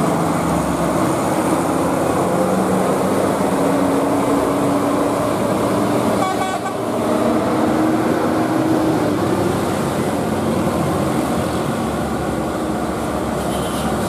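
A tour bus and a red truck passing close, their diesel engines running with a steady drone whose pitch drifts slowly over the first several seconds, amid heavy road noise.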